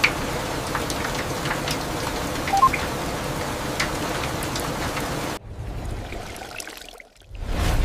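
Steady rain with scattered drops ticking, and a short two-tone electronic beep about two and a half seconds in. The rain cuts off suddenly a little after five seconds and gives way to a quieter pouring sound, then a rising whoosh with a low rumble near the end.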